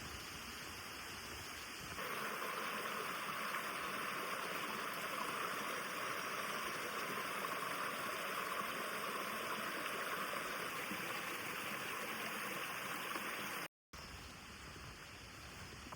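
Mountain stream running steadily. The water sound comes in suddenly about two seconds in, after a softer hiss, and cuts off sharply near the end, giving way to quieter outdoor ambience.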